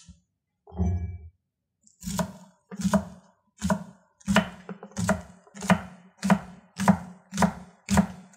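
Chef's knife chopping green onions on a wooden cutting board: a steady rhythm of about ten crisp cuts, a little under two a second, each ending in a knock of the blade on the board. A soft thud comes about a second in, before the chopping starts.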